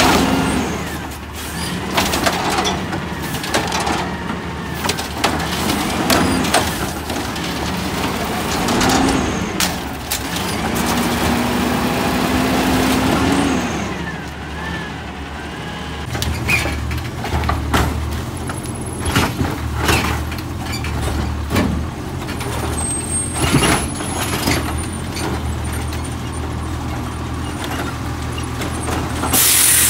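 Automated side-loader garbage truck's natural-gas engine revving up and down as its hydraulic arm lifts and tips wheeled trash bins into the hopper, with clanks and knocks of the bins and falling trash. From about halfway the engine settles into a steady low drone, and an air brake hisses at the very end.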